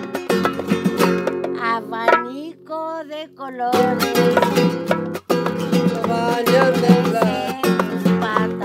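Acoustic guitar played live, a run of plucked and strummed notes between sung lines, with a held, wavering note in the middle where the guitar thins out.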